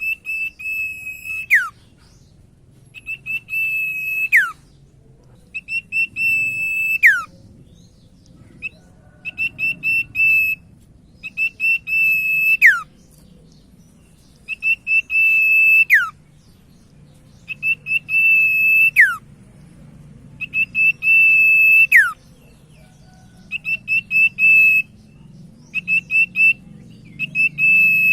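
Common iora (cipoh, called sirtu) singing a repeated song about every three seconds. Each phrase is a quick run of short notes, then a held high whistle that drops sharply in pitch at the end.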